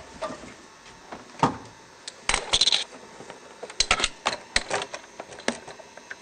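Handling noise as the camcorder is moved about and a cable is handled: irregular clicks and knocks, a single knock, then two quick clattering flurries about two and four seconds in.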